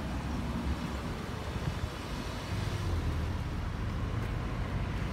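Kenworth T880 tow truck's diesel engine running with a low rumble that grows louder about two and a half seconds in.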